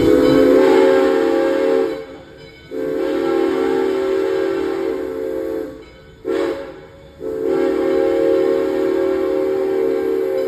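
Steam locomotive whistle sounding a chord of several notes at once in four blasts: long, long, short, long. This is the standard railroad signal for approaching a grade crossing.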